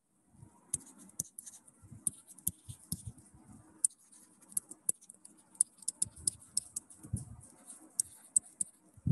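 Faint, irregular taps and scratches of a stylus writing figures and words on a pen tablet.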